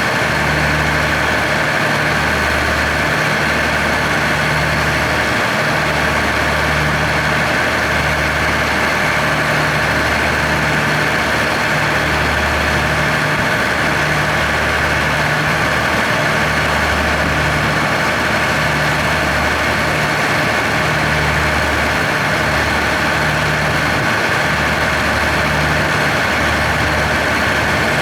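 Diesel locomotive of a freight train idling at a standstill while waiting for the signal. Its low engine hum swells and fades about once a second, with a steady higher hum over it.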